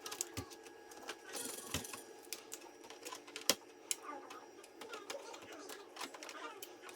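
Small clicks, taps and scratchy plastic rustling as cable connectors are worked loose and unplugged from a computer motherboard, with one sharper click about three and a half seconds in.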